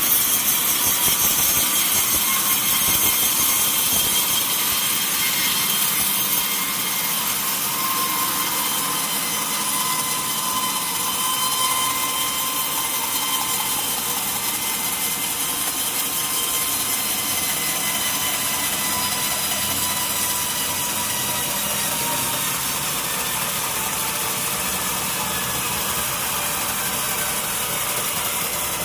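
Sawmill saw cutting steadily through a mahogany log: a continuous cutting noise with a high whine that drifts slowly in pitch, a little louder in the first few seconds.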